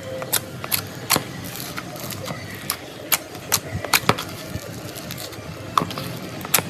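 Slime being squished and worked, giving off irregular sharp clicks and pops as air pockets burst.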